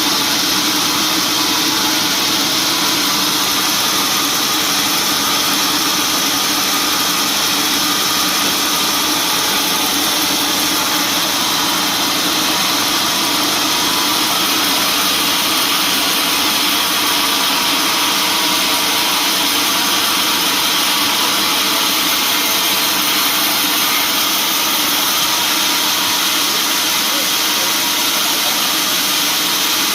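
Sawmill machinery running steadily: a loud, even mechanical noise that does not let up or change.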